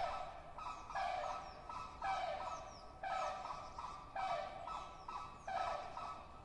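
Flock of flamingos honking, harsh goose-like calls repeating roughly once a second.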